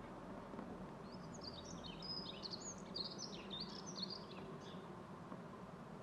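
A small songbird singing one fast, jumbled twittering phrase of high, quickly gliding notes, starting just over a second in and lasting about three and a half seconds, over faint steady background noise.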